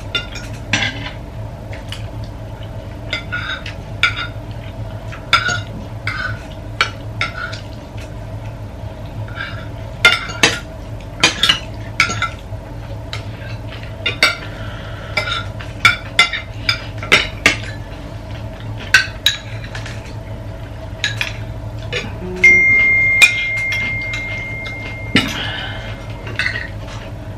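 Spoons and forks clinking and scraping on ceramic plates and bowls in a string of short, irregular clinks. About two-thirds of the way through, a steady high-pitched tone sounds for about three seconds.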